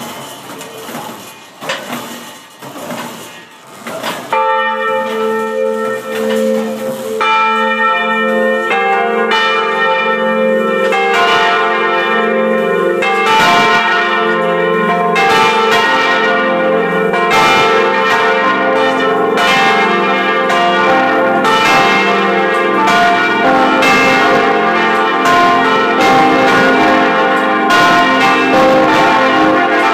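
Large swinging bronze bells ringing: after a few seconds of knocks, the first bell starts to sound about four seconds in. More bells join over the next several seconds until several ring at once, their strokes overlapping and their tones hanging on.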